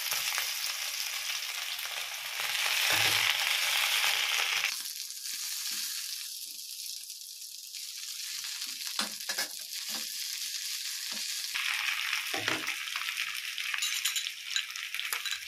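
Gongura (sorrel) leaves sizzling in a little hot oil in a nonstick pan as they are dropped in and pressed down by hand. The sizzle is loudest in the first few seconds, dies back to a quieter hiss with a few short clicks, then picks up again near the end.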